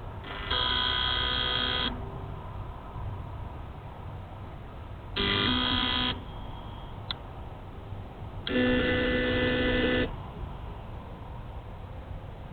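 An unidentified buzzing tone, steady in pitch, sounding three times for a second or so each: near the start, about five seconds in, and again about three seconds later.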